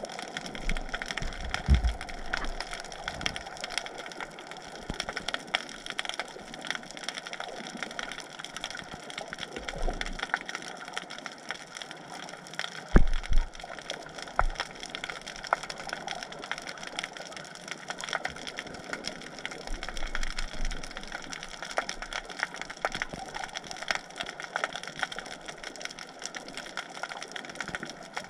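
Underwater crackling: a steady, dense patter of small irregular clicks, with a few low thumps, the loudest about 13 seconds in.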